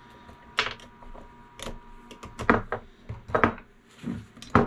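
Sharp metallic clinks and taps, about one a second, as freshly cast lead cannonball weights are worked in and out of a metal weight mold.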